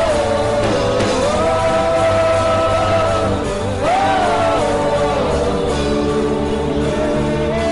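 Worship singers singing long held notes, some sliding up and down, over a steady instrumental backing.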